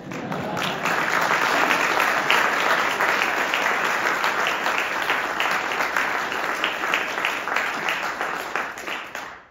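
Audience applauding: dense clapping that starts suddenly and dies away near the end.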